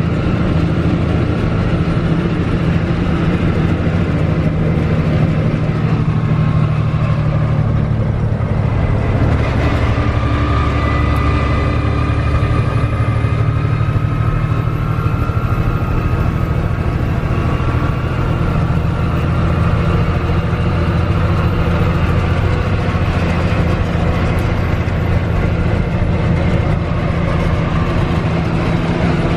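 A 1982 Mack R-series truck's diesel engine runs steadily under way, heard from inside the cab along with road noise.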